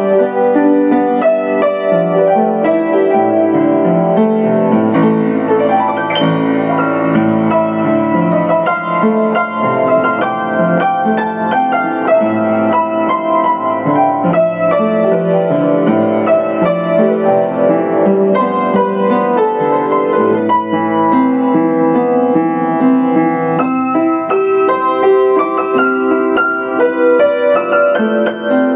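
Yamaha U1J upright piano played solo: a continuous, flowing passage of many notes struck in quick succession, with no pauses.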